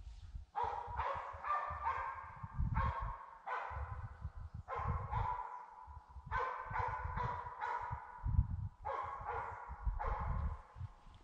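Hunting dogs barking and baying in the distance during a driven boar hunt: a run of drawn-out calls, about one a second, over a low rumble on the microphone.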